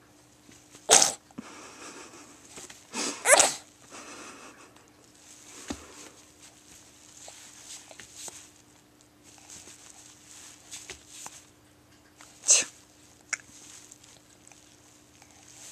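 Baby sneezing three times: short sharp sneezes about a second in, at about three seconds, and near the end, with soft breathing and small noises between.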